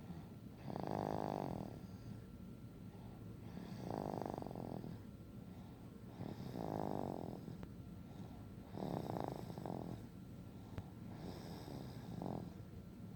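Steady, rhythmic snoring of a sleeper. Five snores come about every two to three seconds, each lasting about a second, with quieter breathing in between.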